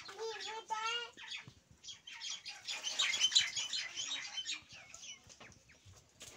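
A small child's voice wavering briefly, then water splashing and pouring from a plastic jug into a plastic tub of water, busiest and loudest about three seconds in.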